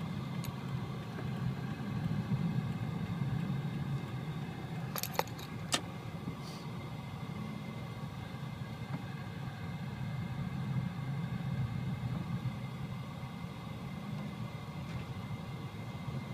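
Car cabin noise while driving slowly in traffic: a steady low rumble of engine and tyres heard from inside the car. A few short clicks or rattles sound about five to six seconds in.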